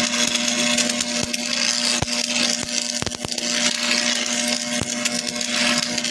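An electric power tool running steadily with a constant motor hum and a hissy grinding noise as it works metal, with scattered sharp clicks.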